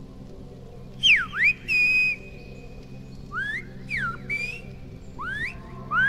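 Silbo Gomero, the whistled language of La Gomera: a person whistling a message in loud phrases of sliding pitch that swoop up and down. There are three groups of whistles, starting about a second in, with one note held near the top for a moment.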